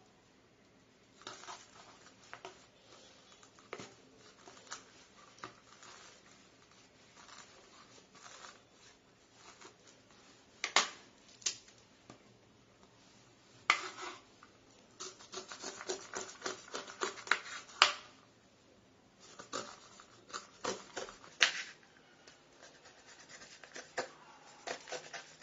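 Kitchen knife slicing kernels off a corn cob on a wooden cutting board: irregular scraping and cutting strokes, with a few sharp knocks of the blade or cob on the board.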